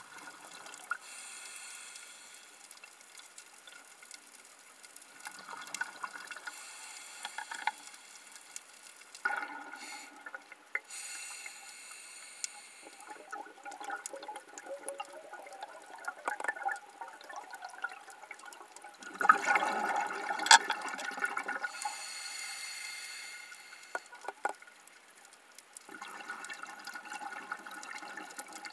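Underwater sound of bubbling and moving water, swelling in bursts every few seconds, like a scuba diver's exhaled bubbles. The loudest burst comes about two-thirds of the way in.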